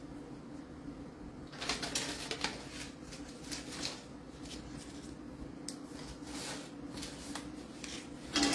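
Faint handling noises, light rustles and clicks of kitchen things being moved, over a steady low hum. Near the end there is a louder short thump and rustle as a paper-wrapped stick of butter is set down on the table.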